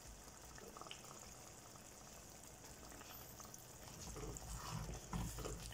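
Thick date pickle simmering in a pan, faintly bubbling, with a wooden spoon stirring and scraping through it, louder from about four seconds in, as just-added vinegar is mixed in.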